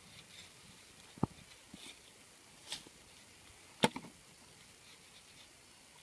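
A blue PVC pipe grid laid on bare soil and shifted by hand: two sharp plastic knocks, about a second in and near four seconds in, the second the loudest, with a short scrape between them.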